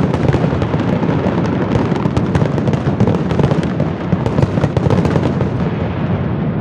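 Aerial fireworks display: a continuous barrage of shells bursting, with many sharp cracks over a steady low rumble and no break between them.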